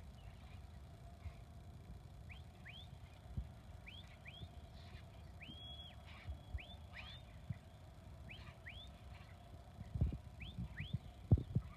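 A shepherd's whistled commands to a working sheepdog: short high whistles, mostly in quick rising pairs repeated every second or two, with one longer held whistle near the middle. A few dull low thumps near the end.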